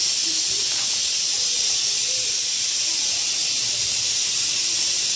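A steady, loud hiss that does not change.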